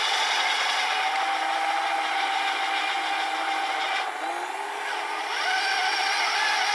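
Electric motors of a battery-powered RC truck and its 3D-printed model snowblower, whining steadily under a noisy hiss. About four seconds in the sound dips briefly, then the whine climbs in pitch again.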